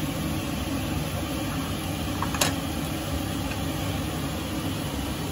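Steady low rumbling noise, with a single sharp click about two and a half seconds in.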